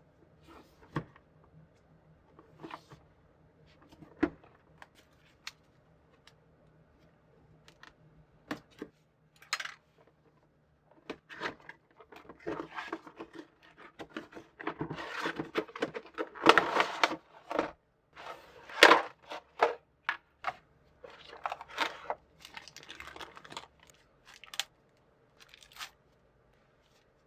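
Packaging of a boxed figure being opened by hand: scattered taps and clicks on the box, then long stretches of tearing and crinkling plastic and cardboard through the middle, easing off near the end.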